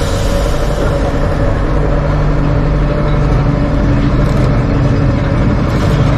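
Tram running with a steady, even rumble of motor and wheels.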